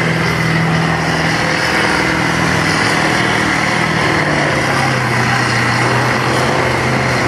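Diesel farm tractor's engine working hard at full throttle as it drags a weighted tractor-pulling sled. Its note drops in pitch about halfway through as the sled gets heavier and the engine is pulled down.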